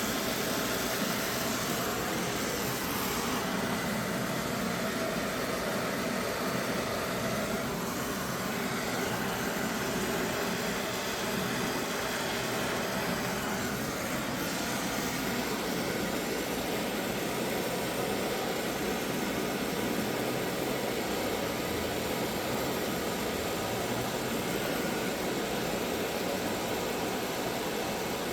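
Brazing torch flame burning with a steady hissing roar.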